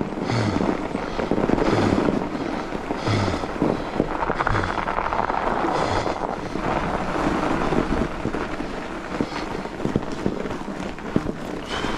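Fat bike riding on a packed-snow trail: steady rolling noise from the wide tyres and drivetrain. Through the first half the rider breathes hard, about one heavy breath every second and a half, as he struggles for breath on the climb.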